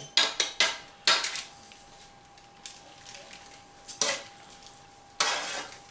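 A metal fork scraping and clinking against a foil-lined tray while shredded chicken is pushed off it: a few sharp clinks in the first second, another about four seconds in, then a longer scrape near the end.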